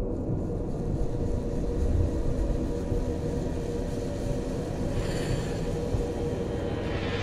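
Low, steady rumbling drone with a few faint held tones, a hiss swelling briefly about five seconds in and building again near the end.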